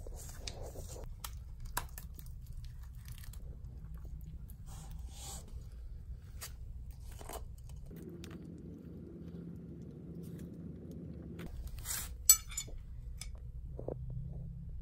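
Hands and a trowel scraping and pressing wet foundry lining mix in a plastic bucket: scattered small clicks and rustles over a low hum, with one sharp click about twelve seconds in.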